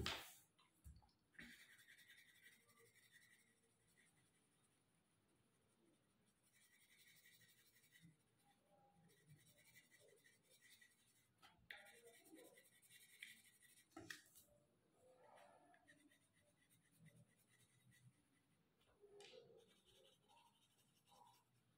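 Faint scratching of a coloured pencil shading on paper, coming in stretches of strokes, with a few sharp clicks: one at the very start and a couple more around the middle.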